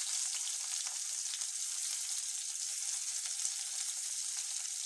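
Sliced onions frying in hot oil in a kadai: a steady, high sizzling hiss.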